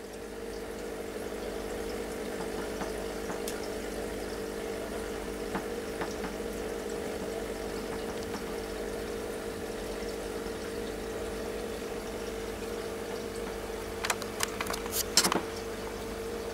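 Aquarium filter and pump running, a steady hum with running water. A few sharp clicks come near the end.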